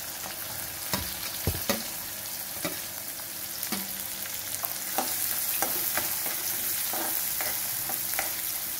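Chopped onions sizzling in hot oil in an aluminium kadhai, a steady hiss. Scattered sharp clicks and knocks run through it, a few strong ones in the first couple of seconds as the onions go in from a steel plate, and a steel spatula stirs them near the end.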